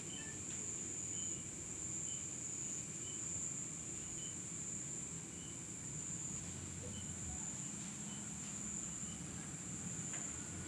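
Steady high-pitched insect chorus, with short faint chirps about once a second.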